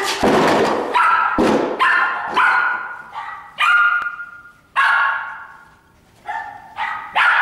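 Shetland sheepdog barking repeatedly, about eight short, shrill barks. Two heavy thuds come in the first second and a half.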